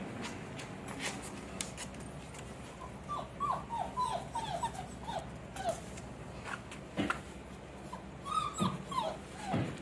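Four-week-old German Shepherd puppies whimpering: runs of short, high, downward-sliding squeaks, one after another, with a few sharp knocks among them.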